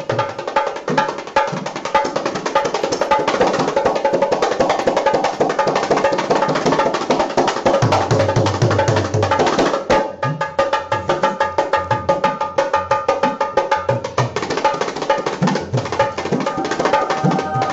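Instrumental background music driven by quick, busy percussion over held tones; the music changes abruptly about ten seconds in.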